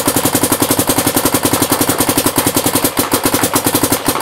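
Dye DSR paintball marker firing rapidly in an unbroken string, about a dozen shots a second.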